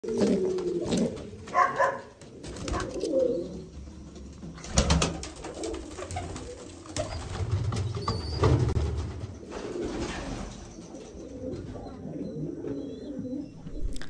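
Domestic fancy pigeons cooing in a loft, several low wavering coos overlapping, with a few sharp knocks among them.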